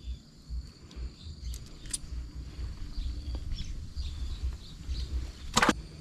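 River ambience in stormy weather: uneven low rumbling of wind on the microphone, a faint steady insect trill, and a single sharp knock near the end.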